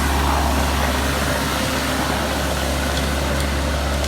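A machine running steadily: an even low drone with a hiss over it.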